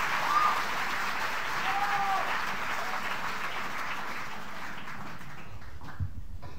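Audience applauding, with a few shouts in the crowd, fading away over the last few seconds. A soft low thump near the end.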